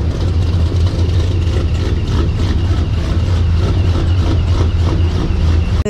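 Chevrolet TrailBlazer SS's LS V8 idling with a deep, steady exhaust rumble.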